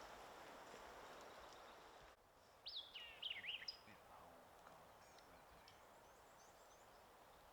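A songbird sings one short phrase of quick, warbling whistled notes about three seconds in, with faint chirps after it over quiet outdoor ambience. A soft hiss fills the first two seconds and cuts off suddenly.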